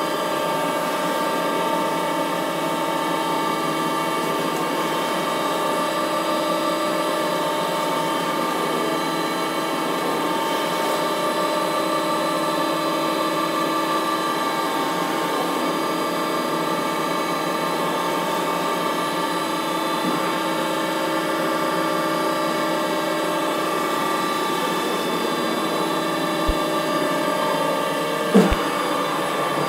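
CNC milling machine spindle running at a steady speed, a steady whine of several tones over a rushing noise, as its end mill cuts into a head of lettuce. A few sharp clicks near the end.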